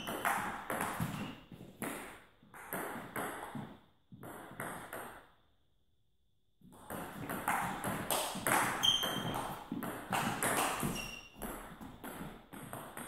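Table tennis rally: the ball clicking off bats and table in a quick run of hits, ringing in a large gym hall. Play stops about five seconds in and starts again a second or so later.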